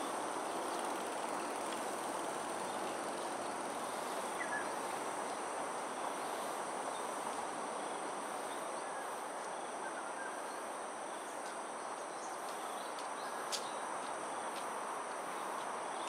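Steady outdoor ambience: insects shrilling without pause at a constant high pitch over an even background noise, with one sharp click about three-quarters of the way through.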